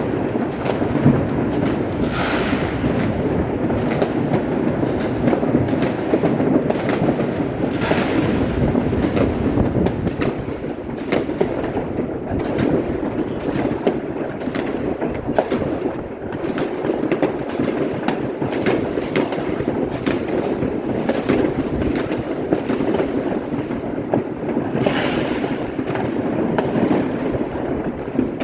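Many fireworks and firecrackers going off at once: a dense, unbroken barrage of bangs and crackles with no pause, and a few louder crackling flares about 2, 8 and 25 seconds in.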